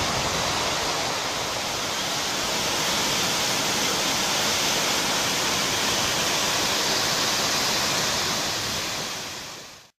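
Waterfall: a steady rush of falling water that fades out near the end.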